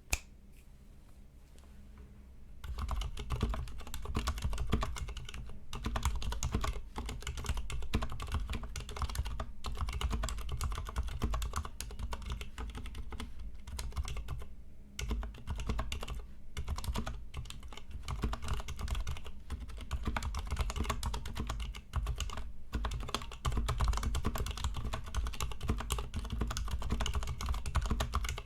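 Continuous fast typing on a Ducky Miya Pro mechanical keyboard with Cherry MX Silent Black switches, unlubed and without foam. Its keystrokes are muted and thocky. The typing begins about two and a half seconds in and pauses briefly a couple of times.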